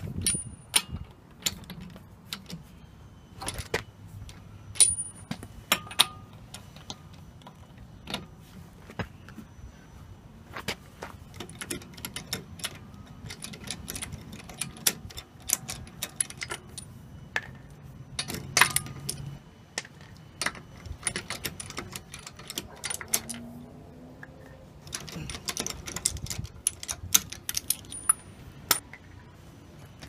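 Steel lug nuts being worked off the wheel studs with a breaker bar and socket: a long string of sharp metal clicks and clinks, a few of them ringing briefly like a ping, coming in flurries.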